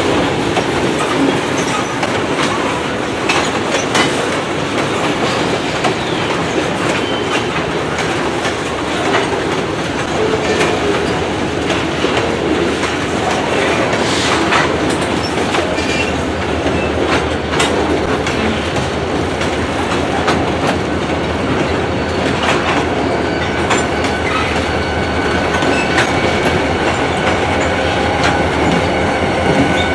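Loaded tank cars rolling slowly past, wheels clicking and clacking over rail joints with some wheel squeal. From about halfway a steady low diesel drone builds as the pushing locomotives draw near, and steady high tones join it late on.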